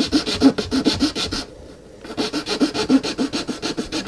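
Zona razor saw cutting through a small resin casting block in quick short back-and-forth strokes, about five a second, with a brief pause about halfway. This is the casting block being sawn off a 1/72 resin ejection seat.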